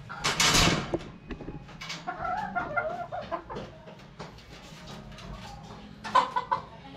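Caged chickens clucking, with a brief burst of noise about half a second in and a few sharp taps near the end.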